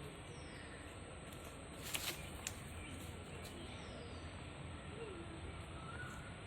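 Faint outdoor background with short, high chirps of distant birds about once a second, and a couple of sharp clicks about two seconds in.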